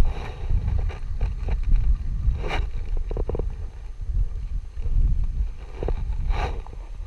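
Wind buffeting the microphone in gusts, a heavy uneven rumble, with a couple of brief hissing bursts.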